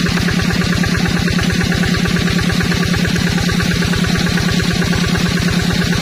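Single-cylinder diesel engine of a two-wheel hand tractor idling steadily, an even fast chugging of about ten beats a second.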